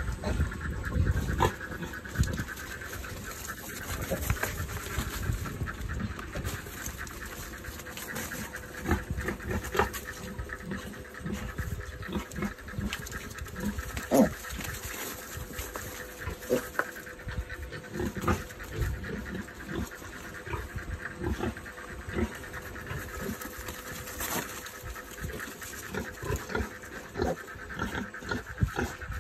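A sow and her newborn piglets grunting in short, irregular sounds.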